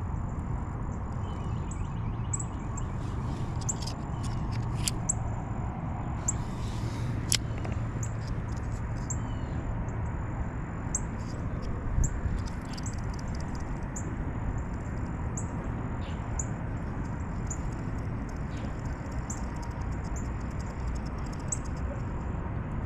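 Small birds chirping with short, high chirps, scattered irregularly, over a steady low background rumble.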